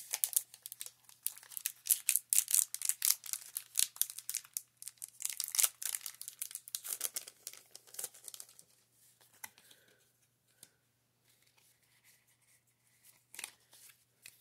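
Foil wrapper of a Pokémon trading-card booster pack crinkling and tearing as it is opened and pulled apart, dense crackling for about nine seconds before it quietens, with one short sharp sound near the end.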